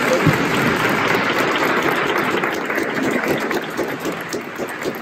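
Audience applauding, the clapping thinning out a little near the end.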